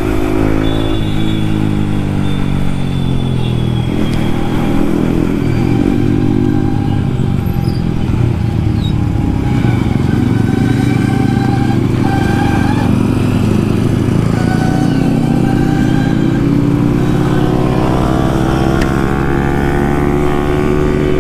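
Yamaha MT-15's single-cylinder engine through an Akrapovic carbon exhaust with the dB killer removed, under way: the exhaust note falls and rises repeatedly with throttle and gear changes, and climbs steadily near the end as the bike accelerates.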